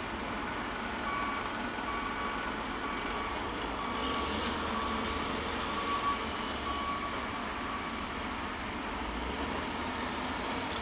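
Mulching-yard machinery running steadily, with a vehicle's reversing alarm beeping repeatedly from about a second in until about eight seconds in.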